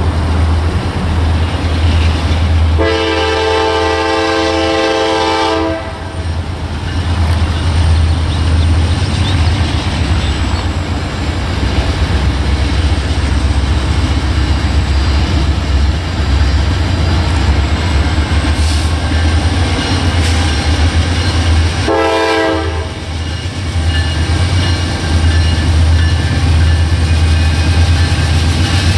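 Approaching diesel freight train sounding its air horn: one long blast of about three seconds a few seconds in, and a short blast about two-thirds of the way through. A steady low rumble runs underneath.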